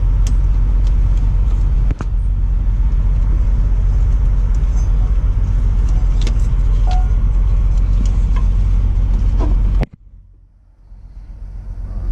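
Steady low vehicle rumble with scattered light clicks and taps as a serpentine belt is worked off the engine's pulleys by hand. The rumble cuts out abruptly about ten seconds in and swells back up near the end.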